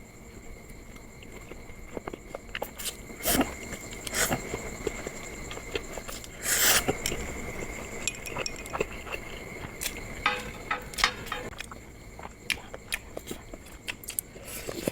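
Close-miked eating of mixed instant noodles with kimchi: chewing and slurping, with scattered light clicks of utensils against the bowl.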